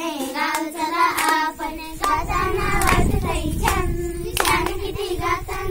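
A group of young girls singing a Marathi children's song together in unison, with a few claps. A low rumble joins about two seconds in.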